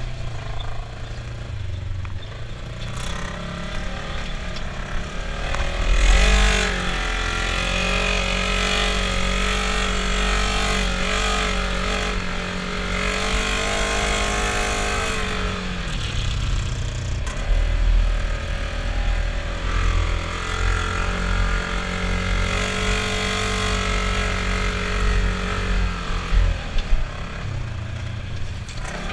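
Polaris RZR side-by-side's engine running under throttle: it revs up about six seconds in, holds a steady pitch for about ten seconds, drops back, then revs up again and holds before easing off near the end.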